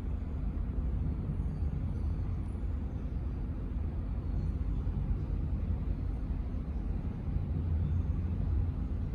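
Steady low rumble of airport background noise, with no single event standing out.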